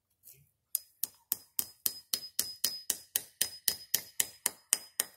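Hammer tapping a spile into a sugar maple's trunk: quick, light strikes about four a second, each with a metallic ring, starting about a second in.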